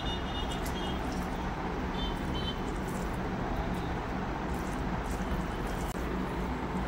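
Soft squishing of rice and cabbage curry being mixed and pressed together by hand on a plate, with faint clicks, over a steady background hum.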